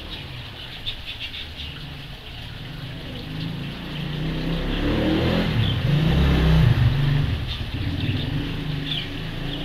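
A motor vehicle passing by, its engine rumble growing louder to a peak about six to seven seconds in and then fading.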